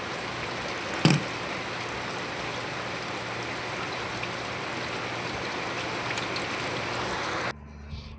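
Steady rush of flowing water from a hydroponic growing system, with a faint low hum under it and a single sharp knock about a second in. The rushing cuts off abruptly near the end.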